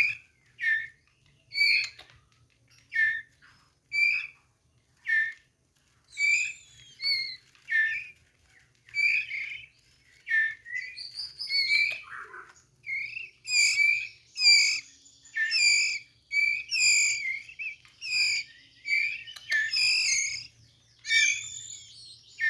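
Young white-rumped shama calling with short, high chirps, about one a second at first. From about six seconds in the calls come faster and louder, in busier bursts.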